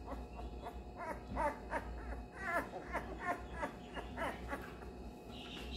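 A 12-day-old basset hound puppy whining in a string of short, high cries that each slide down in pitch, about two or three a second, starting about a second in and fading out before the end.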